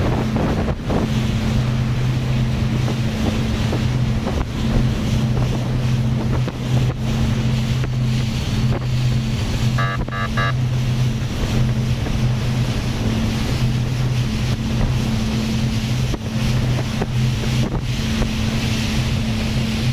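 Rigid inflatable boat running steadily at speed, its engine humming under a constant rush of water along the hull and wind buffeting the microphone. A short run of about three quick beeps sounds about halfway through.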